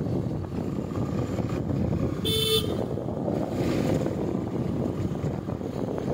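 Steady low rumble of a moving vehicle with wind noise, and one short vehicle horn beep a little over two seconds in.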